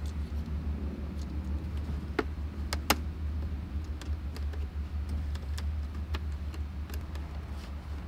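Plastic clicks and light rattling as a wiring-harness connector is pushed onto the back of a BMW E60 instrument cluster and the cluster is handled, with a few sharper snaps about two to three seconds in, over a steady low hum.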